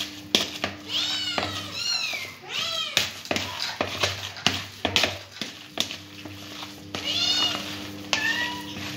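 A domestic cat meowing repeatedly, several meows in the first three seconds and a couple more near the end. Between the meows come short clicks and knocks from food being mixed by hand in a plastic bowl, over a low steady hum.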